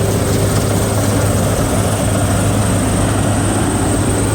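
Combine harvester running steadily under load: a loud low engine hum with a thin, steady high whine over it.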